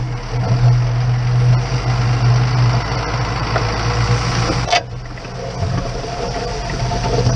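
Ford TW-25 tractor's six-cylinder diesel engine running steadily under load while pulling a disc harrow. A sharp click comes about two-thirds of the way through, after which the sound is a little quieter.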